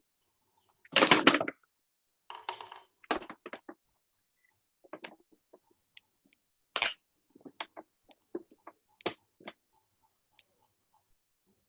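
Scattered clicks, knocks and brief rustles picked up over an open video-call microphone. The loudest is a rustle about a second in.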